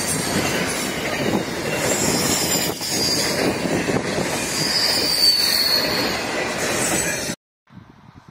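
Container wagons of a freight train rolling past close by: wheels rumbling and clattering on the rails, with a high wheel squeal that wavers in pitch. The sound cuts off abruptly about seven seconds in.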